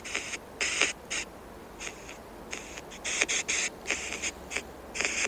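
Spirit-box (ghost box) app on a phone speaker sweeping through static: short, choppy bursts of hiss that cut in and out irregularly, about two a second.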